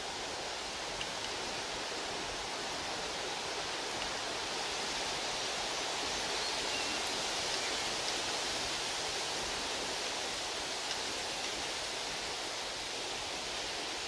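Steady rush of running water, an even hiss that swells slightly in the middle.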